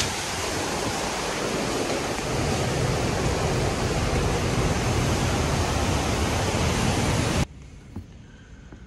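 Category 4 hurricane wind and driving rain rushing steadily and loudly. The sound cuts off abruptly near the end to a much quieter hush.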